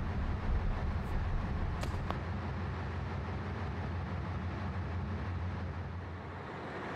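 Steady low drone of a ship's engine-room machinery, with a couple of faint light clicks about two seconds in.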